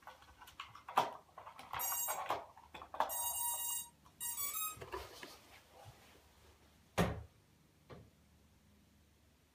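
Clicks and knocks of hands on a plastic model-car body that has been built into a quadcopter, with a few short electronic beep tones from its electronics as the battery is connected. Two separate knocks come near the end.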